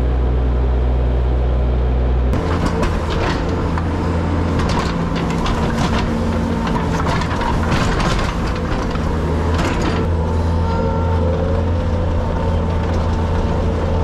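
Skid steer engine running steadily, with scattered rattles and rustles over it from about two seconds in.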